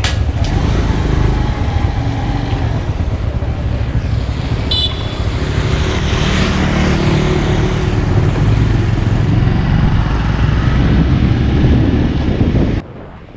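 Motorbike engine running while riding, with steady road and wind rumble. A short high beep about five seconds in, and the sound cuts off abruptly near the end.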